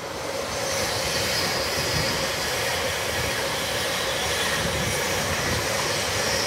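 Avanti West Coast Class 390 Pendolino electric multiple unit passing on the main line: a steady rush of wheels on rail and train noise that swells about half a second in and then holds.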